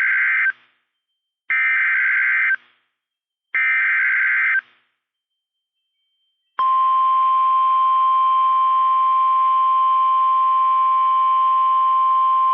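NOAA Weather Radio emergency alert signal: three short bursts of buzzy digital data tones (the SAME header that encodes a new warning), about a second apart. After a two-second pause, the steady 1050 Hz warning alarm tone starts about six and a half seconds in.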